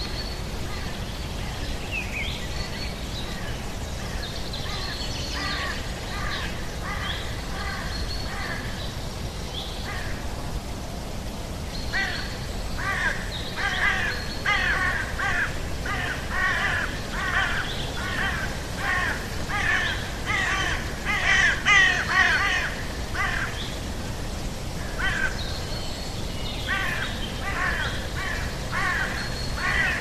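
Birds calling over a steady background hiss in an outdoor nature ambience. Scattered high chirps and whistles come first, then, from about a third of the way in, a long run of repeated calls at roughly two a second, loudest past the middle, pausing briefly and starting again near the end.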